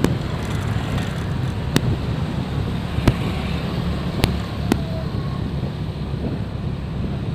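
Motorcycle engine and road noise from riding in traffic, with wind buffeting the microphone. About five sharp cracks sound at scattered moments.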